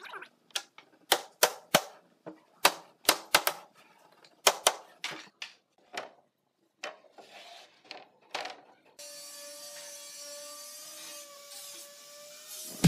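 Irregular sharp wooden knocks and clicks, a few a second, from wooden wardrobe panels being handled and set down. About nine seconds in the knocks stop and a steady machine hum with a held tone takes over.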